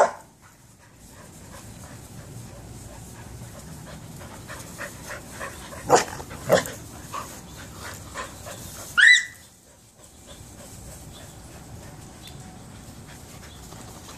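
Dogs play-fighting: panting and small scattered vocal noises, two short sharp barks about six seconds in, and a high yelp that rises in pitch about nine seconds in.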